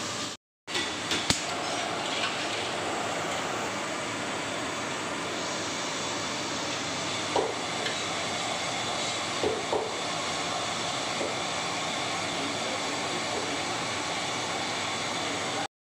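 Aluminium pressure cooker on a gas stove hissing steadily as steam escapes under pressure, with a few faint clicks; the sound cuts out briefly twice.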